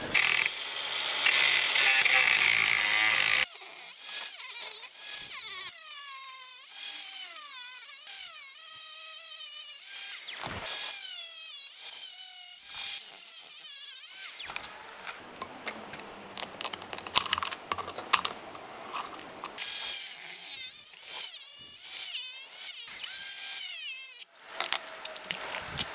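Angle grinder with a thin cutting disc slicing through the aluminium casing of a diesel fuel filter, a harsh high grinding run in several bursts. Between cuts the motor's whine slides up and down in pitch as the disc speeds up and slows.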